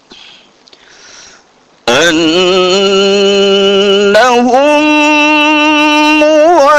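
Man's voice chanting Qur'anic recitation in a melodic style. After a pause of about two seconds, one long held note comes in, steps up in pitch about halfway through, and wavers into an ornamented turn near the end.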